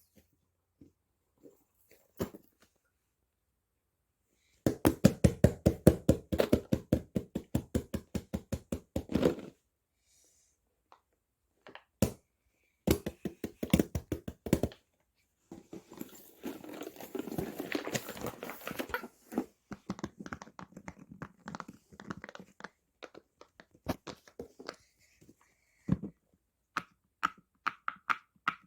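Fidget toys being handled: quick runs of taps and knocks at about ten a second, with a denser stretch of rustling clicks in the middle and scattered single taps.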